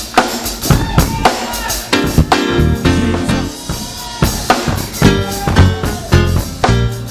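Live gospel church band playing at full volume: a drum kit with frequent snare and bass-drum hits over sustained keyboard chords.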